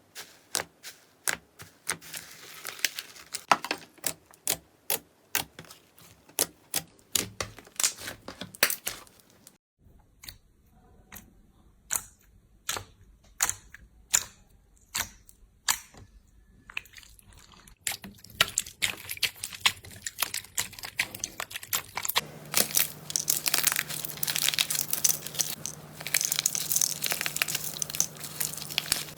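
Slime being pressed and pulled in a series of sharp sticky pops, two or three a second, which thin out about ten seconds in. In the last third it turns to a dense crackling and crinkling.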